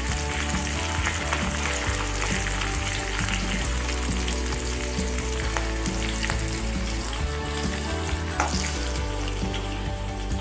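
Cumin seeds and chopped green chillies frying in hot ghee in a kadhai: a steady sizzle with many small crackles and pops. They are stirred with a metal ladle.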